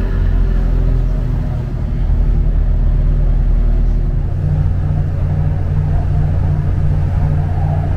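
Steady low hum and rumble of a British Rail Class 769 train running, heard from inside the carriage; the low note shifts to a new steady pitch about four seconds in.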